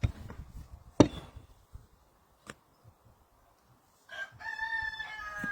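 A few sharp knocks, the loudest about a second in, then a rooster crowing about four seconds in: one long call that falls slightly in pitch.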